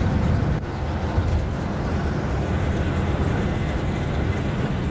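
Volvo B7R coach at highway speed, heard from inside the driver's cab: steady low drone of its rear-mounted six-cylinder diesel engine mixed with tyre and wind noise. The level dips slightly a little over half a second in, then holds steady.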